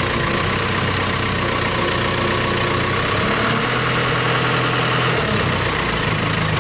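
Diesel engine of a Gradall 524 telehandler running steadily while its boom moves, the engine note changing for a couple of seconds in the middle.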